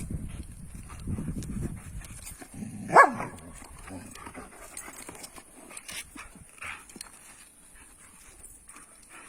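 Dogs play-fighting: low scuffling noises, then one sharp bark about three seconds in, followed by scattered quieter sounds from the dogs.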